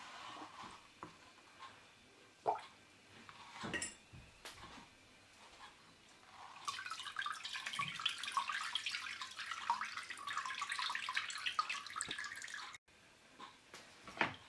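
Home-made grape vinegar trickling in several streams through a cheesecloth-lined metal strainer into a plastic bowl, starting about seven seconds in and stopping abruptly shortly before the end. Before that there are a few soft handling sounds from the wet cloth.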